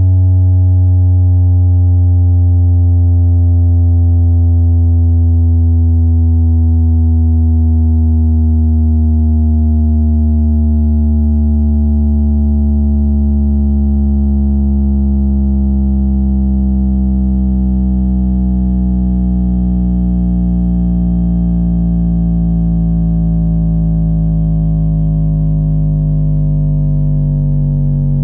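Subwoofer driven hard by a 1600-watt amplifier, playing one low bass tone that slowly glides down in pitch, with many overtones above it.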